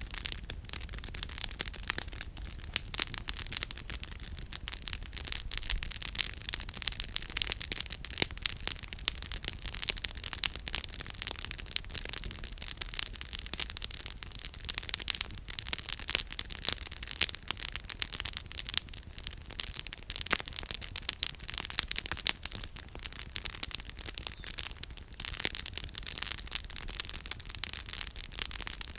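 Campfire firewood burning and crackling: a dense, irregular stream of small pops and snaps, with sharper louder cracks scattered throughout.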